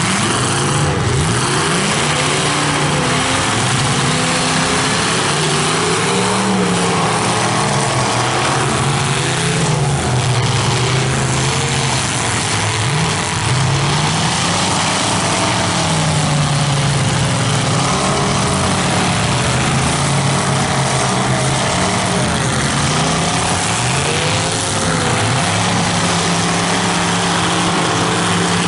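Several full-size demolition derby cars' engines revving up and down together as the cars push and ram, with occasional crashes of metal on metal.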